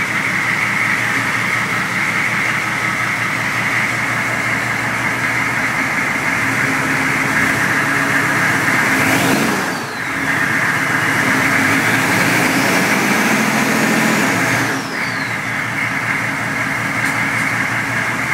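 GM V8 diesel engine of a K5 Jimmy running in gear with the wheels turning off the ground, a steady high whine over it. The revs rise about halfway through, dip briefly, then rise again for a few seconds before dropping back.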